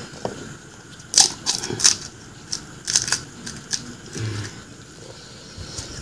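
Crisp, hollow fried pani puri shells crackling as fingers pick them from the pile and crack one open, a run of sharp crackles that mostly falls between about one and four seconds in.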